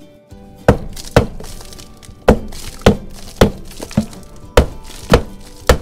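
A wooden-handled hammer striking the metal swivel mount under a boat captain's chair: nine sharp knocks about half a second apart, with a short pause after the second. The blows are meant to break loose a swivel seized onto its aluminum shaft.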